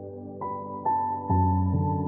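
Calm new-age background music: held tones with single melody notes coming in about half a second apart, and a deeper bass note joining about a second in.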